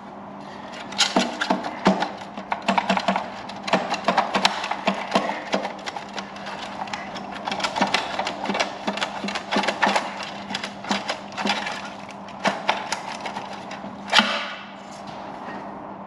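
Metal clips and heat shields clicking, clinking and knocking irregularly as they are worked off an exhaust pipe on a Bristol Hercules radial aircraft engine, with one louder knock near the end. A steady low hum runs underneath.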